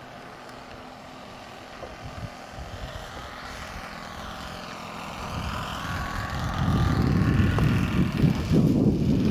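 Radio-controlled model propeller airplane flying by, its motor growing steadily louder as it approaches on a low pass and loudest in the last few seconds.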